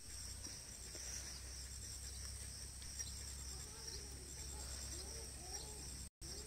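Crickets and other insects trilling steadily in a grassy field, with fine rapid pulses. From about halfway through, faint repeated calls of other animals or birds join in.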